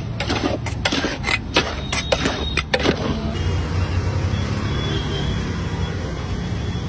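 Steel bowl and spoon clinking and scraping against a large metal pan of poha, several sharp clinks over the first three seconds. After that only a steady low street rumble of traffic remains.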